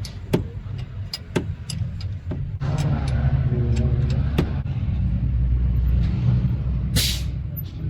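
A motor vehicle engine running steadily with a low rumble, under scattered sharp clicks and knocks. There is a short burst of hiss about seven seconds in.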